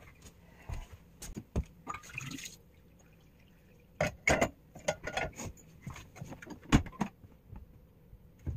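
Sticks of firewood being handled and knocking together: scattered sharp knocks and clicks, coming thickest between about four and seven seconds in, with the loudest, deepest knock near the end of that run.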